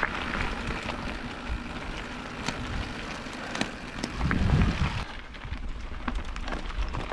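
Mountain bike being ridden on a rough track: a steady crackle of tyres on gravel with scattered sharp clicks, and wind buffeting the microphone in a low rumble about four seconds in.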